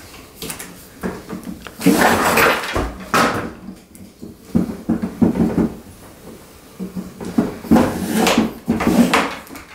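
Carbon-fibre shooting tripod being handled on a table as its legs are moved through their locking positions: a run of irregular knocks, clicks and scrapes in several clusters, loudest about two seconds in and again near the end.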